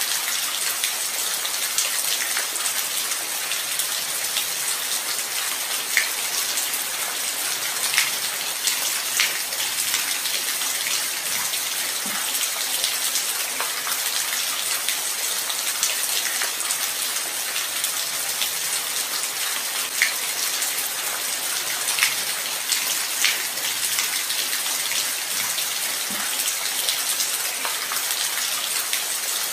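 Light rain falling steadily: an even hiss, with individual drops ticking sharply now and then, a few a little louder than the rest.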